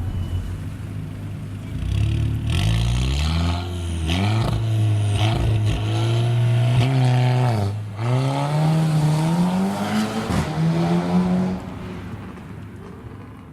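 Volkswagen Golf R's 2.0-litre turbocharged four-cylinder accelerating hard, its note rising through the revs. About eight seconds in the pitch drops sharply at a gearshift and climbs again. A few seconds before the end the engine note fades away as the car comes off the throttle.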